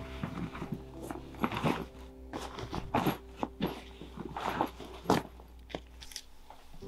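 Aluminium-foil-wrapped packet crinkling and crackling as it is handled, in a string of irregular crunchy crackles, with a soft sustained music underscore beneath.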